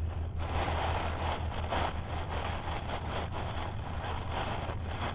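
Rustling of a bag of groundbait being handled, starting about half a second in, over a steady low hum.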